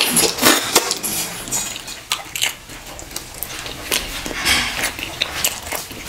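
Close-up mouth sounds of eating fufu and ogbono soup: wet chewing and lip-smacking with many irregular small clicks. Later comes soft squelching as fingers pull the meat apart in the soup.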